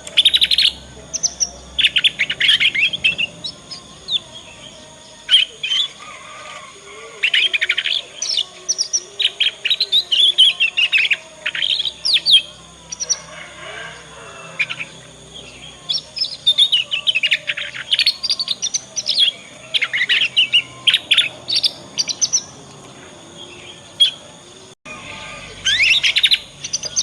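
Young domestic canary singing its unformed practice song, the 'ngriwik' twittering of a juvenile still learning. It comes as bursts of rapid high chirps and short trills, about a second each, with short pauses between.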